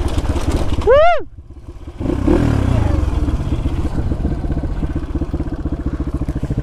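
Dirt bike engine running at low throttle with a steady, even firing pulse, getting louder and rougher from about two seconds in. About a second in, a short high call rises and falls over it.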